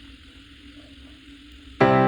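Background music: a soft sustained tone, then near the end a loud piano-like keyboard chord comes in suddenly and rings on.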